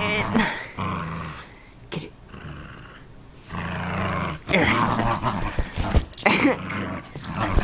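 A dog growling in play over a toy dinosaur, in low growls lasting about a second each, with a few sharp knocks in between.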